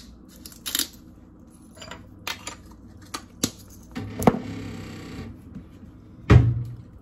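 Hand pepper grinder cracking peppercorns in scattered clicks, with a longer rasping grind about four seconds in. Near the end, a loud thump of something set down on the counter.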